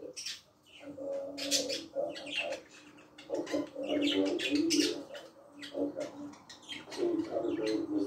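Pet budgerigars chattering, with many short, sharp chirps coming in quick bursts.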